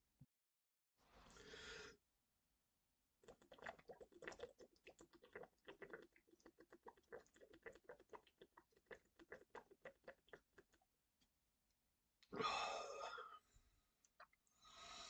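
Near silence, with a run of faint small clicks and two short breathy puffs near the end.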